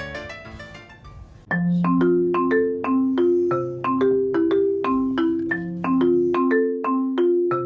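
Background music: a tune fades out, then about a second and a half in a bright marimba-like melody of short struck notes begins.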